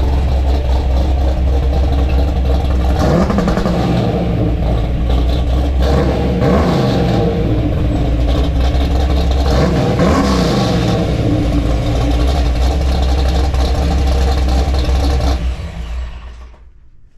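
Classic car engine running through a custom dual exhaust, idling with a low rumble and revved three times, each rev rising and falling back to idle. The engine is then shut off near the end.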